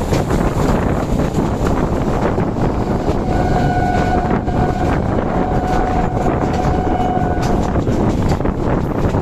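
Train running at speed: a steady loud rail rumble with wind buffeting the microphone. A steady high tone sounds twice in the middle, once briefly and then for about two seconds.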